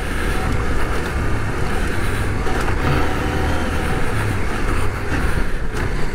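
CF Moto 800MT's parallel-twin engine running at a steady pace on a dirt track, heard from the rider's helmet camera with heavy wind and road noise over it.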